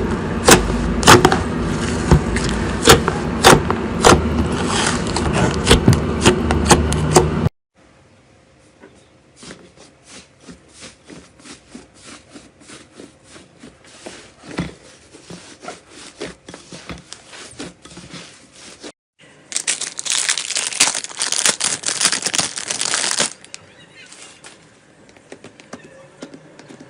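Slime being squeezed and poked by hand, with dense sticky clicks and crackles of popping air pockets. It cuts off abruptly about seven seconds in, goes on as softer scattered clicks, and turns loud and crackly again for a few seconds past the middle.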